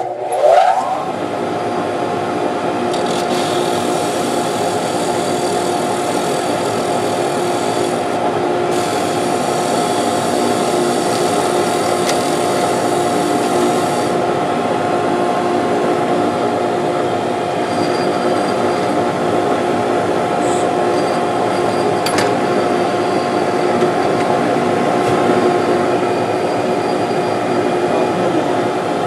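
A vacuum hooked to a mini lathe switches on with a short rising whine and then runs steadily with a constant hum and hiss, together with the lathe turning a pen blank against a drill bit in a Jacobs chuck. A brighter scraping hiss comes in from about three to fourteen seconds in as the bit squares the end of the blank.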